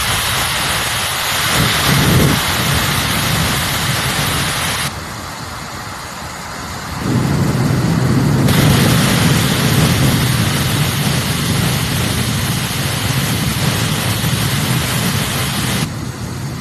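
Wavytalk high-speed hair dryer blowing, a loud steady rush of air. The hiss thins out about five seconds in, then comes back fuller with a deeper rumble about eight seconds in, as the speed setting changes, and it thins again near the end.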